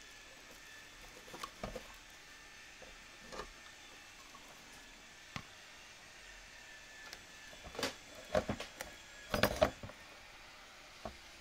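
Scattered light clicks and knocks of hard plastic and metal as a disassembled headlamp's bi-xenon projector and its plastic swivel frame are handled and turned, with a denser run of taps about eight to ten seconds in.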